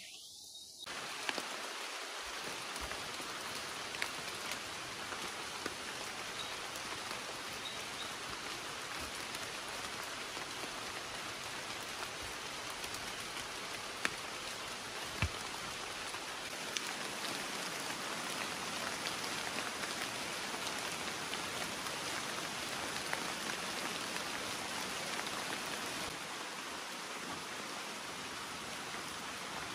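Steady rain falling on forest leaves, starting abruptly about a second in, with now and then a single sharper drip or tap.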